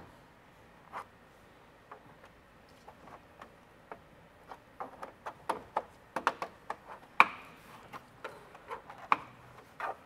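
Plastic clips snapping free and a plastic pry tool clicking against the front bumper trim of a third-gen Toyota Tundra as the trim is pried loose: scattered sharp clicks and snaps, few at first and coming thicker about halfway through.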